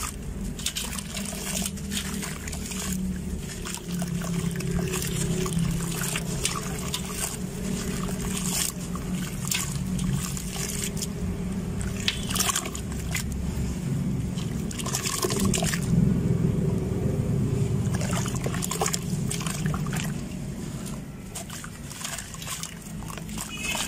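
Hands crumbling and squeezing a gritty sand-cement ball over a metal basin of water: a run of dry crunches and crackles as chunks break off, with sloshing and splashing as crumbs and wet pieces drop into the water.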